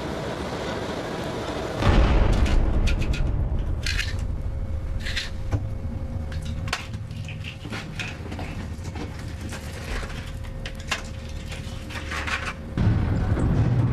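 A sudden deep boom about two seconds in, then scattered sharp clicks and knocks over a low rumble.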